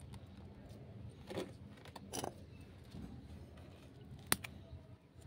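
Small handling noises from a plastic planter filled with potting soil: two short rustling scrapes, then one sharp click a little past four seconds in.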